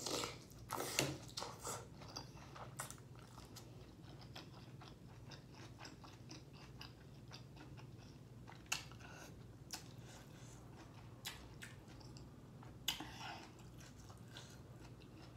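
A person chewing and biting seafood boil, shrimp and sausage in sauce, close to the microphone. Mouth clicks and smacks come thick and fast for the first few seconds, then thin out to scattered sharper clicks.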